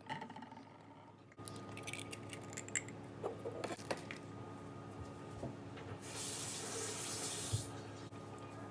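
Kitchen tap running briefly, a steady hiss of water from about six seconds in, after a few scattered clinks and knocks.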